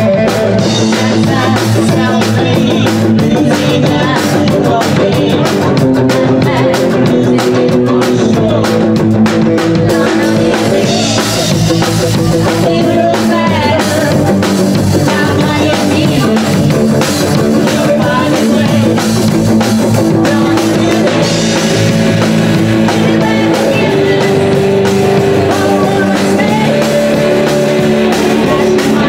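A live rock'n'roll band playing loud: electric guitar, upright bass and drum kit driving a steady beat, with a woman singing.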